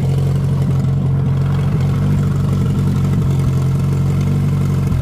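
Old Opel truck engine running at a steady idle.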